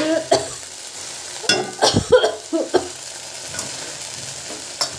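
A metal spatula scrapes and stirs a crumbly fried mixture in a metal wok over a steady sizzle. The scrapes come in uneven strokes, loudest about two seconds in.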